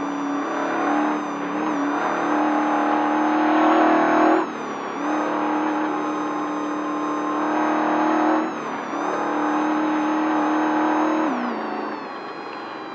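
Desert race truck's engine at high revs, heard from inside the cab over road and wind noise. Its pitch creeps up, dips sharply twice, then falls and quietens near the end.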